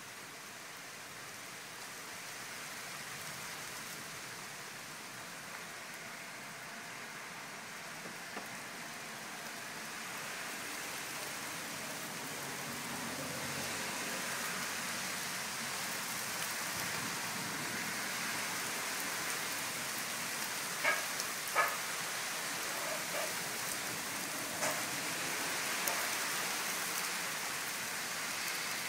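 Steady rain falling on leaves and ground, growing gradually louder, with two brief sharper taps about three-quarters of the way through.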